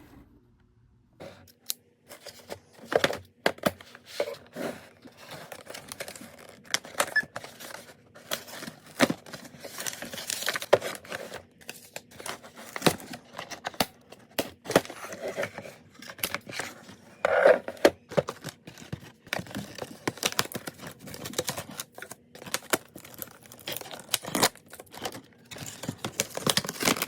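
Toy packaging being opened by hand: tearing and crinkling, with many short clicks and knocks from handling.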